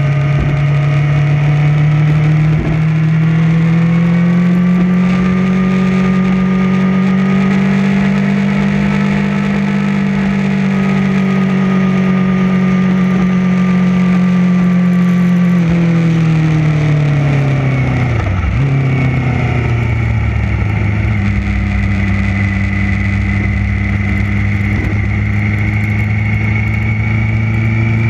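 Onboard sound of a race motorcycle's engine held at high revs at speed. About halfway through the revs fall over a few seconds as the throttle comes off, then the engine runs steadily at lower revs, climbing slightly near the end.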